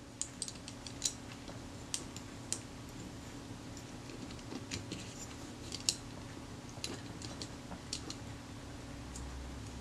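Small irregular metallic clicks and taps as a Kodak Retina IIIS sprocket shaft is worked down through the camera body and into the sprocket, over a faint low steady hum.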